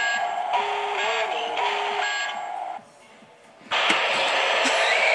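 Animatronic Halloween 'First Aid' box prop playing its spooky sound track. Music with wavering tones drops away for about a second shortly before three seconds in; then a loud, noisy shriek-like effect starts as the box springs open.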